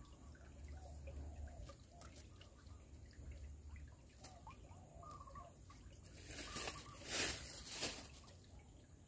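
Shallow stream water trickling and dripping softly. Around six to eight seconds in, a louder rustling noise lasts about a second and a half.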